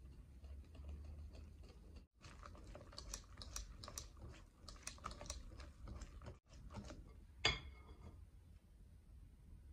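Wire whisk beating milk into flour and cocoa in a glass bowl: a fast run of clicking, wet stirring strokes, then a single sharp clink of the whisk against the glass that rings briefly, about seven and a half seconds in.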